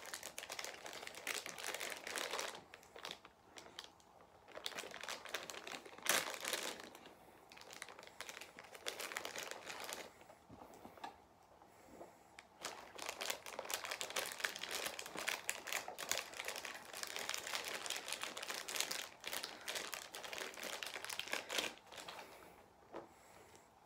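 Crinkly packaging rustled and crumpled by hand in irregular bursts with short pauses, as the small pieces of a collectible figure are unwrapped.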